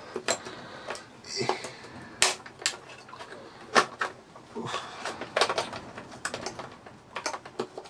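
Hard plastic clicks and knocks at irregular intervals as the brush roll's end caps are worked into the plastic base of a Panasonic MC-E42N upright vacuum cleaner, with faint handling rustle between.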